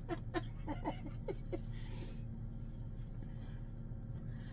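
Steady low hum, with faint murmured voices in the first second and a half.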